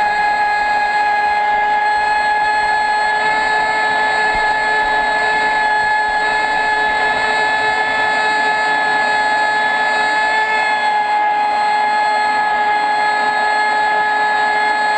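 Traxxas Spartan RC speedboat's brushless electric motor and drive running at a steady speed, heard from onboard: a loud, even, high whine that holds one pitch, over the rush of water and air.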